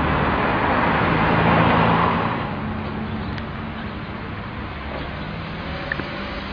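A motor vehicle passing close by on the street, loudest in the first two seconds and then fading into steady traffic noise.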